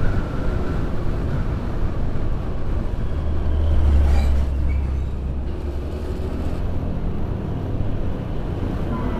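Steady road and wind noise from a moving motor scooter. About four seconds in, a heavy container truck passes close by: a deep rumble that swells and fades over a couple of seconds.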